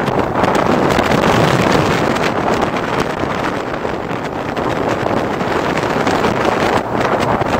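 Wind rushing over the microphone on a moving motorcycle at road speed, mixed with the Honda CBR900 Fireblade's engine and tyre noise.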